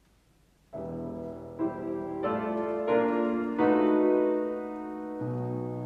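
Instrumental introduction to a Russian song: after a moment of near silence, sustained chords on a keyboard instrument begin about a second in and move to a new chord every second or so.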